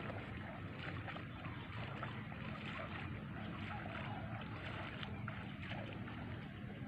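A small engine running steadily at a constant pitch, with wind on the microphone.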